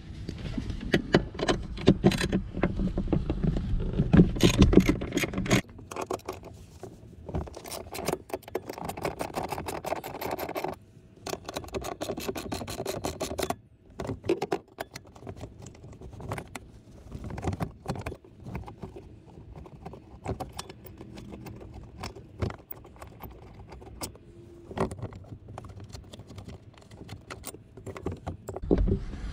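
Metal clicking and rattling from hand tools and steel bolts as the 12 mm rear-seat mounting bolts are loosened and taken out of the seat hinge brackets. The noise is heaviest in the first few seconds, then comes in quick runs of clicks with scattered single clicks after.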